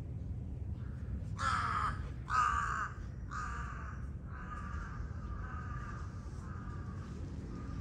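A crow cawing six times, about one harsh call a second, the first two loudest and the rest fading away.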